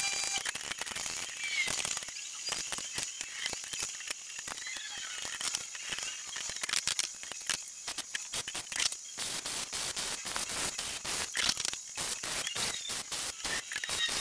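Vulcan 220 MIG welder crackling as it lays welds on a steel plate, on and off.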